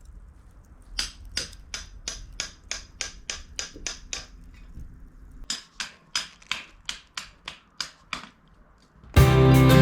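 A rapid, even series of sharp taps or clicks, about three to four a second, which stops about eight seconds in; guitar music starts near the end.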